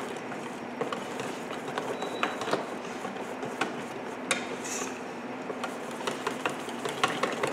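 Wire whisk beating gram-flour (besan) batter in a stainless steel bowl: steady wet stirring with frequent clicks and taps of the whisk against the bowl.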